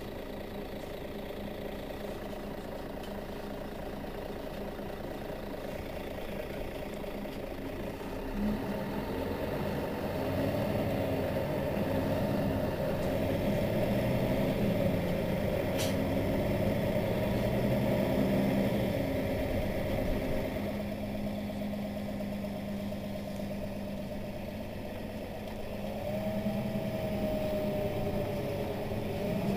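Mercedes-Benz Citaro facelift city bus idling while standing still. About eight seconds in, the running grows louder with a rising whine that then holds steady. It eases off after about twenty seconds and swells again near the end, with a whine gliding up and down.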